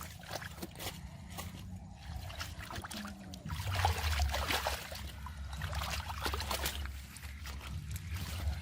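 Shallow muddy water splashing and sloshing in irregular bursts as hands work through it while hand fishing, over a low rumble.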